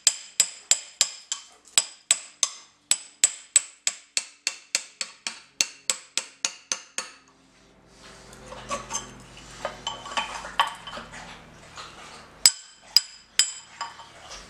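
Hammer striking a steel punch set in an axe head's eye to drive out the old wedge: rapid ringing metal-on-metal blows, about three a second, for about seven seconds. A quieter stretch of softer knocks and rustling follows, then three more hard strikes near the end.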